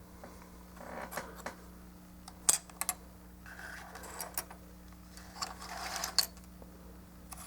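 Plastic model-kit parts and runners being handled, with a few sharp plastic clicks and short rustles, over a faint steady hum.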